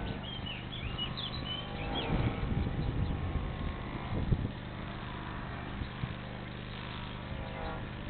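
Outdoor rural ambience: small birds chirping in the first second or two, over a steady low hum and irregular low rumbling that comes and goes in the middle.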